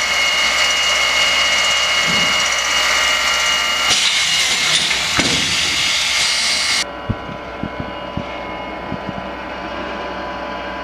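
Mop making machine running with a loud, steady hiss and whine. About seven seconds in the sound cuts to a quieter machine hum with a few light clicks.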